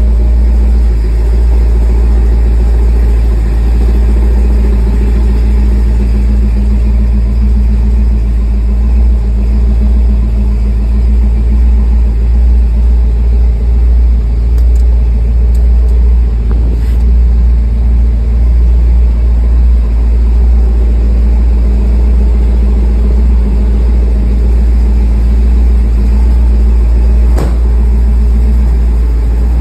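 Plymouth Trail Duster's engine idling steadily, a deep, even rumble, with a single light click near the end.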